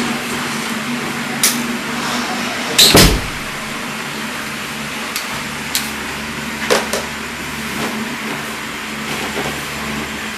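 Steady hum and hiss of room and recording noise, with a few light knocks and a louder double thump about three seconds in.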